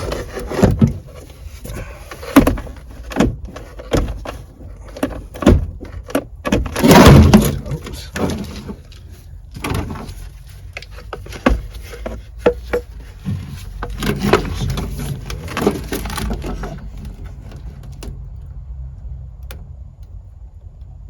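Irregular knocks, taps and clatter of an engine computer being handled and test-fitted against the car's side panel, with one longer, louder clattering scrape about seven seconds in.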